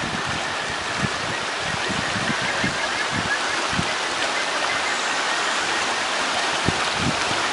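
Mountain stream rushing steadily, with faint, high, trilling calls of kajika frogs (Buergeria buergeri) repeating over the water noise.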